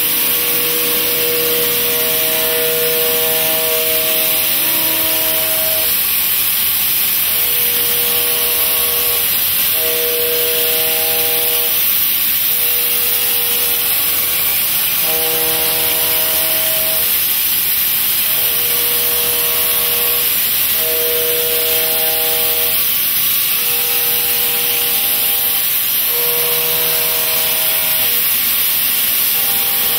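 Indexable-insert milling cutter cutting steel in a vertical mill, with a loud steady hiss. Over the hiss, whining tones come and go every second or two, shifting in pitch.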